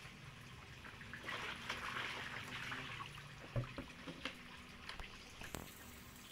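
Water splashing and pouring as eels are tipped out of a tub into a plastic basin, then sloshing as hands move among the eels, with a few sharp knocks in the second half.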